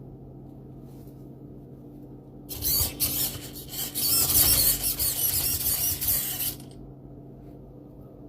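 A radio-controlled construction machine works with a steady low motor hum. About two and a half seconds in, a loud gritty scraping and grinding starts and lasts about four seconds, then stops, leaving the hum.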